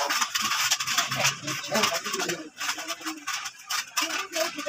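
Short clicks and rattles of PVC door-frame profile strips being handled and fitted together, with faint voices behind.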